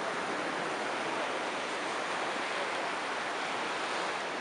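Steady wash of sea surf on the beach, an even hiss with no single wave breaking out above it.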